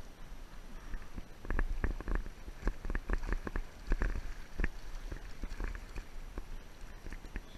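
A drifting inflatable pontoon boat: irregular light knocks and slaps, likely water lapping the tubes and gear tapping the frame, over a steady low rumble on the microphone.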